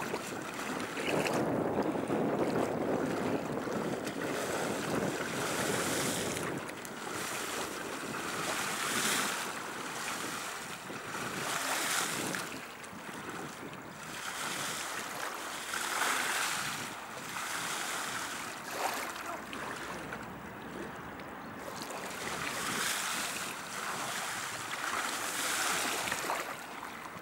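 River water washing against the bank in surges every three seconds or so, with wind on the microphone and a stronger rush in the first few seconds.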